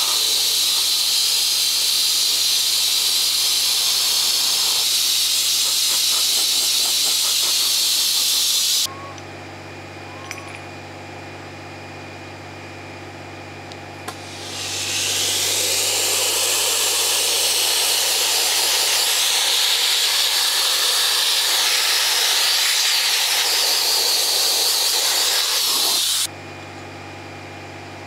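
Soda-blasting gun hissing loudly as it blasts a Weber 40 DCOE carburettor body with air and baking-soda media. It cuts off about nine seconds in, swells back about five seconds later and stops again near the end. A low steady hum runs under the pauses.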